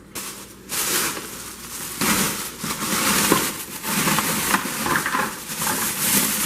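Chipped pieces of brittle asphalt-based sound-deadening material tipped from a bag into a plastic bucket: a run of dense crackling and rattling, picking up about two seconds in.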